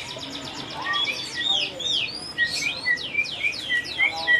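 White-rumped shama singing a rapid string of high, falling notes, with short lower notes running beneath them. It gets louder about a second in.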